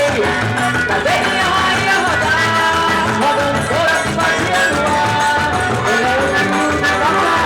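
Lively Brazilian festa junina dance music playing loud, with singing over the band.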